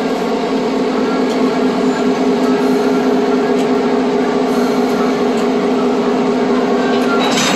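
Diesel locomotive running steadily with a low, even hum as it eases up to a passenger car to couple on. A short rushing noise comes near the end.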